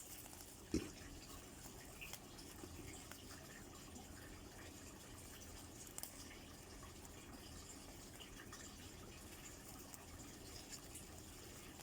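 Faint room tone with one soft low thump about a second in and a few light ticks.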